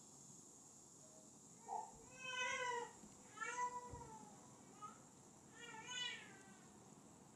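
A cat meowing three times, each call rising and then falling in pitch, the first about two seconds in.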